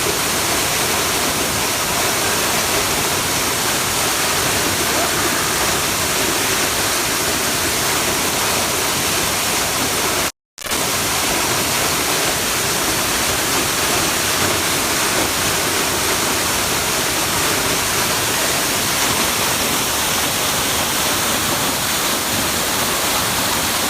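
Waterfall: a steady rush of falling water at an even level, which drops out completely for a split second about ten seconds in.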